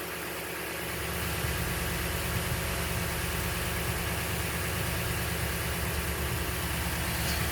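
Toyota Tundra's 5.7-litre V8 engine idling steadily.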